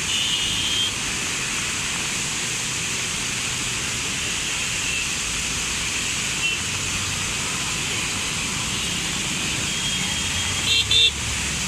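Floodwater of a swollen river rushing steadily after heavy rain, a constant hiss. Short high-pitched tones cut in briefly at the start and, loudest, twice just before the end.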